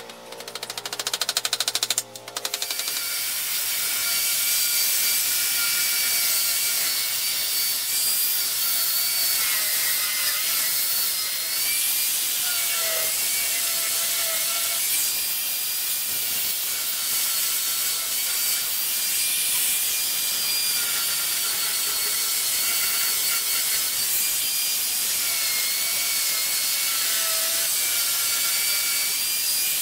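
Angle grinder with a 100-grit sanding disc running and sanding a wooden picture frame, its high whine dipping and recovering as the disc is pressed onto the wood, over a steady rasping hiss. A short buzzing sound comes first, in the opening two seconds.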